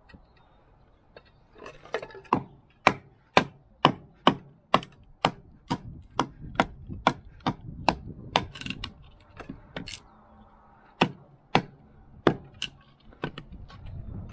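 Batoning firewood: a wooden baton strikes the spine of a camp knife, driving the blade down through a split of firewood. There is a steady run of sharp knocks, about two a second, then a few slower strikes near the end.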